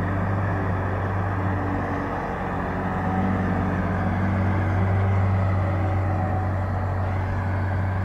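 New Holland self-propelled forage harvester running steadily as it cuts its way through the field: a continuous deep engine hum, swelling slightly in the middle.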